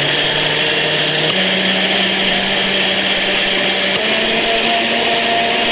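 Electric kitchen blender running and being switched up through its speeds. Its whine jumps higher in pitch about a second in and again about four seconds in.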